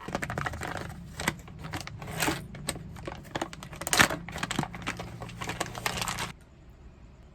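A dense run of crinkling and sharp clicks for about six seconds, cutting off suddenly.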